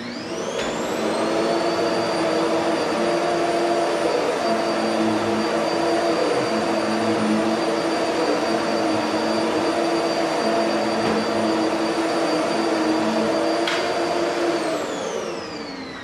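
Modern vacuum cleaner switched on: the motor spins up within a second to a steady, high-pitched whine over a lower hum. It runs for about fourteen seconds, then is switched off and winds down with a falling whine near the end.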